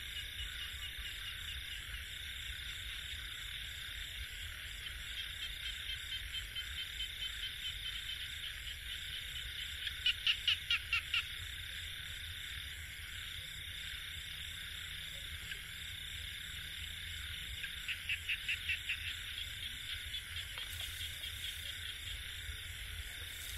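Night chorus of frogs and insects: a steady high chirring with a faster insect trill above it. Twice, a louder run of rapid pulses stands out, about ten seconds in and again some eight seconds later.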